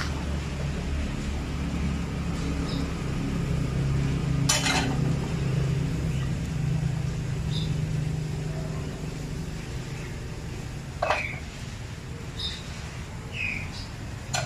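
Steady low motor hum that weakens after about ten seconds, with three sharp clinks of crockery or metal spaced a few seconds apart and a few faint short high chirps.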